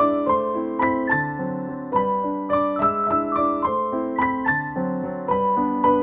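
Background piano music: a gentle melody of single notes, several a second, with held chords beneath.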